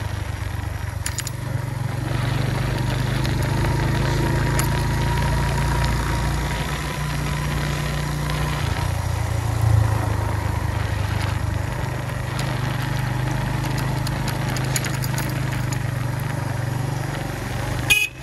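Suzuki GS150 motorcycle's single-cylinder engine running steadily as a low hum, its speed shifting a few times.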